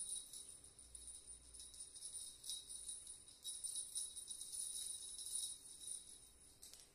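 Small bell on a cat-wand toy jingling faintly and unevenly as the toy is waved and batted by a kitten.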